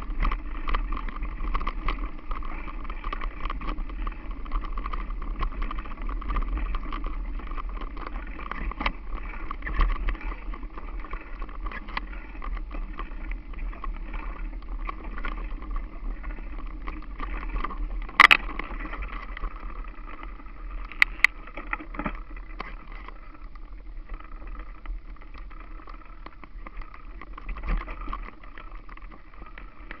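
Mountain bike rolling over grass and rough ground, picked up by a camera mounted on the bike: a steady rumbling rush with frequent small rattles and knocks from the frame, and one sharper knock about eighteen seconds in.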